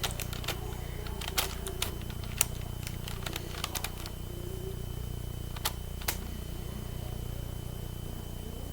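Plastic clicks and clacks of a 9x9 Rubik's cube's layers being turned, a run of light clicks in the first few seconds, then two sharper ones, over a steady low hum.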